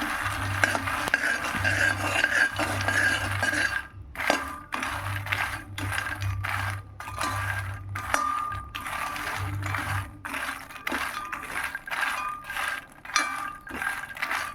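Dry fox nuts (makhana) rattling and scraping in a metal pan as they are stirred with a spatula. A continuous clatter for the first few seconds gives way to separate strokes about twice a second, some with a short metallic ring.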